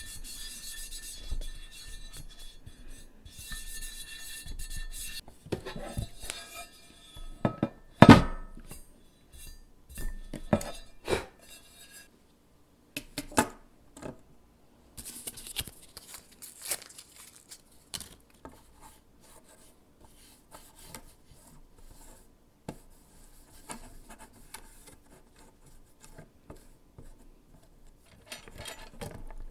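Small hard keyboard parts clicking, clinking and clattering as they are handled, with scattered knocks, the loudest about eight seconds in.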